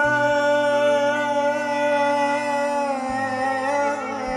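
A man singing one long held note in a Middle Eastern vocal style, with a slight change in pitch about three seconds in.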